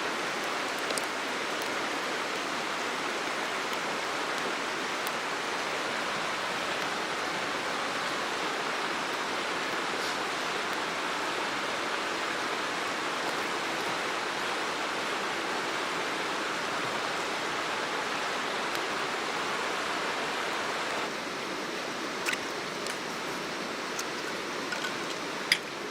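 Steady rushing of a flowing stream, changing slightly about 21 seconds in, with a few sharp clicks near the end.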